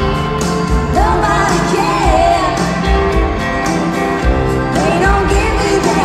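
Live concert music in an arena: a woman singing lead over a full band with a steady drum beat, heard through the arena's sound system.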